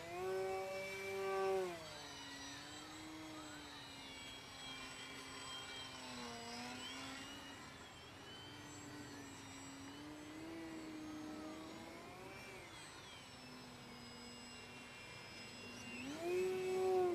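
The electric motor and propeller of a Carbon-Z Yak 54 3X RC aerobatic plane whine in flight, the pitch wandering up and down with the throttle. It rises and gets louder in the first second and a half and again about a second before the end, as the throttle is opened up.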